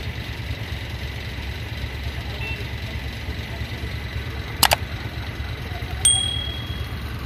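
Steady low rumble of waiting traffic idling. About halfway a mouse-click sound effect is heard, and near the end another click followed by a short bell ding, from a subscribe-button overlay.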